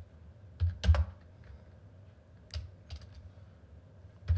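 Computer keyboard being typed on: a handful of separate keystrokes with pauses between them.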